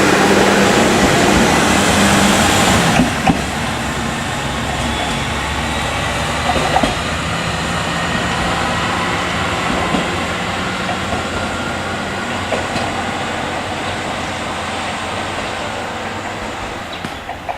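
Tenryu-Hamanako Railroad diesel railcar running on the line, with a steady engine note that drops away about three seconds in, then a broad rumble of wheels on rail with a few clicks, slowly fading.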